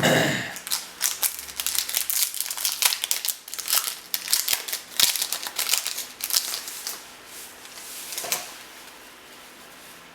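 Trading card pack wrapper crinkling and crackling as it is torn open and handled: a rapid, irregular string of crinkles for about seven seconds, tailing off near the end.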